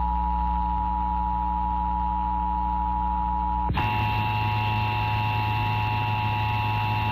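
Emergency Alert System attention signal: the steady two-tone 853 and 960 Hz alert tone, with a low hum under it. About four seconds in, a hiss, a higher steady whine and a stronger hum join it while the two tones carry on.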